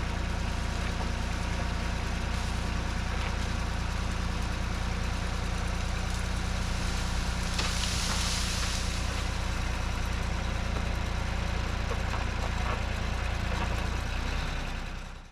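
Tractor engine running steadily at a low, even note, with a brief hissing rustle about halfway through. The sound fades out at the end.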